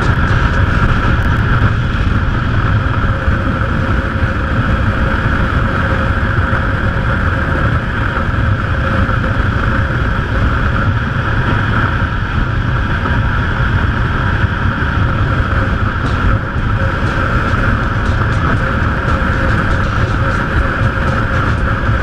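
Motorcycle at a steady cruise on the open road: an even engine drone mixed with wind and tyre rush, with no change in speed.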